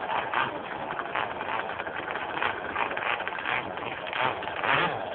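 Twin Zenoah 26cc two-stroke petrol engines of a large radio-controlled powerboat running on the water, a steady buzz that surges up and down.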